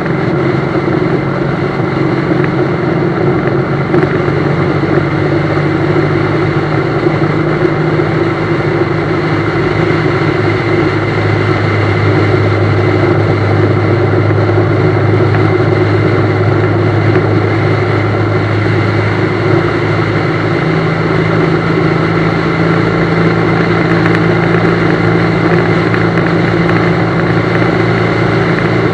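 BMW GS motorcycle engine running steadily under way, with a constant haze of road noise. The engine note shifts slightly about twelve seconds in and again about twenty seconds in.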